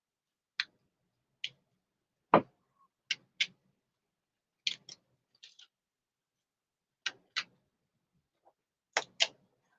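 Sharp clicks and snaps of plastic action-figure parts being handled and popped apart: about a dozen short clicks at irregular intervals, often in quick pairs, the loudest about two and a half seconds in.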